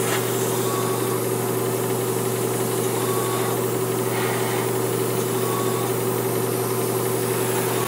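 Airbrush spraying paint at about 25 PSI: a steady hiss of air over the even hum of the small air compressor running.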